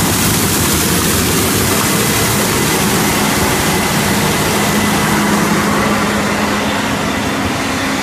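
Combine harvester with an 8-row Drago GT corn head running through standing dry corn: a loud, steady machine drone over a dense hiss, with a faint high whine in the middle seconds.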